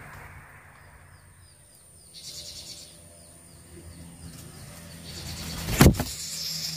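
A bird chirping faintly in two short runs of quick, high chirps, with a brief hiss between them; a single sharp knock near the end.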